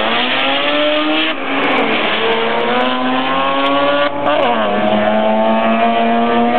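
Two drag-racing cars launching off the line and accelerating hard down the strip. Their engine pitch climbs, drops sharply at a gear change about a second and a half in and again about four seconds in, then climbs again.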